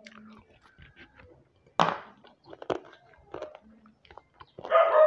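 Close-miked chewing and lip-smacking of a person eating by hand: scattered wet clicks and smacks, with a louder smack about two seconds in. Near the end a long, slowly falling tone begins.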